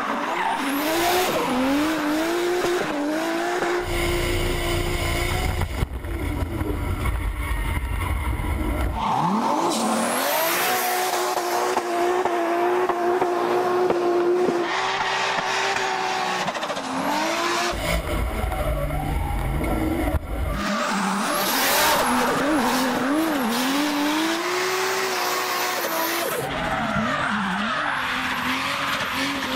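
Toyota Supra drift car's engine revving up, held at high revs through long slides and dropping back several times, with tyres squealing. Twice a heavy low rumble comes in for a few seconds.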